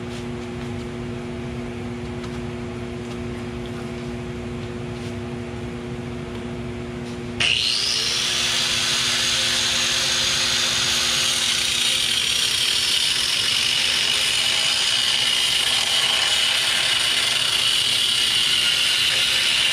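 A steady low hum, then about seven seconds in an electric angle grinder starts suddenly, its whine rising as it spins up. It then cuts steadily into the steel frame rail of a 2001 Ford Ranger, a loud high grinding.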